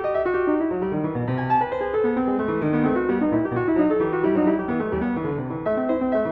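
Background piano music, a steady flow of quick notes.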